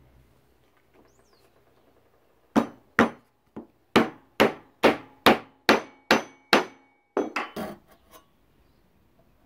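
Mallet knocking wooden dowels down into their holes in a plywood box: about ten sharp blows, roughly two a second, then a few lighter quick taps.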